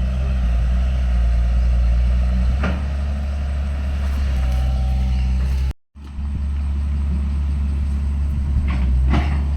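Heavy earthmoving machine's diesel engine running steadily under load, with a couple of short knocks. The sound drops out for a moment about six seconds in.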